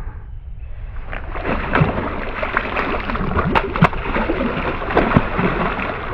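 Water splashing and sloshing beside the boat as a hooked fish is played and thrashes, irregular sharp splashes starting about a second in.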